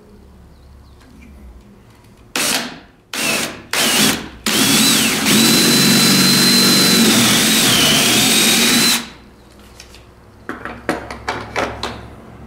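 Cordless drill boring a pilot hole into the wall: three short trigger pulls, then one steady run of about four and a half seconds with a high whine that wavers a little as the bit cuts in.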